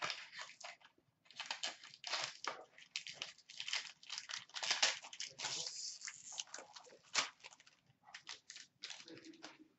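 Wrapper of an Upper Deck SP Game Used hockey card pack crinkling and tearing as it is opened by hand, in irregular rustles and crackles, with one sharper crackle about seven seconds in.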